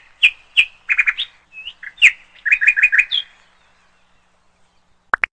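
Small bird chirping: a quick run of short chirps over the first three seconds, then two brief rising notes near the end.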